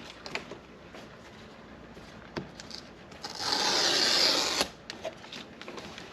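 Tearing and rubbing of a MacBook Pro box's wrapping as it is opened: small clicks and crinkles of handling, then one long rasping tear lasting just over a second, about three and a half seconds in.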